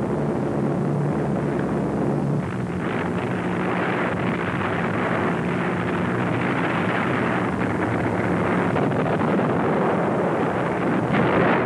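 Steady drone of propeller aircraft engines over a rushing noise.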